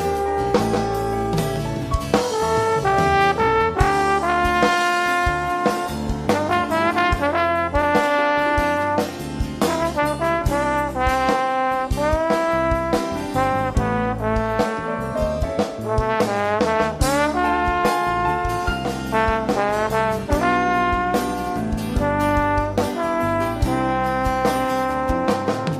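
Trombone playing a solo melody over a band accompaniment with electric bass, some notes sliding into the next.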